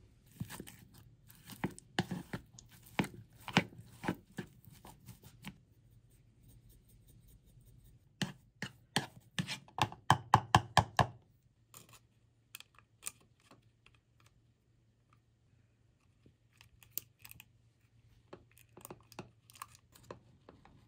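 Kitchen knife chopping on a cutting board: a few seconds of strokes at about two a second, then a quicker, louder run of chops about eight seconds in, then scattered light taps, over a faint low hum.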